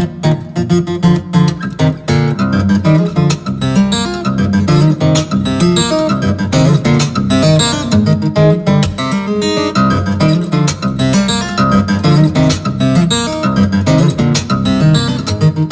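Background music played on acoustic guitar, a continuous stream of plucked and strummed notes.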